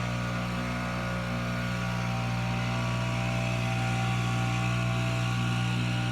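Single-cylinder engine of a walk-behind lawn mower running at a steady speed.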